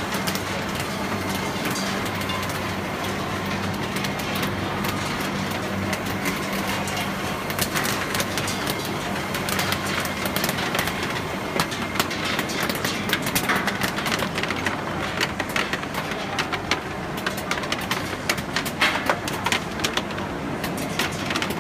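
Cashew colour sorter running: a steady low hum from the machine and vibratory feeder, with rapid, irregular sharp clicks from the air-jet ejector valves firing to blow rejected nuts out of the stream.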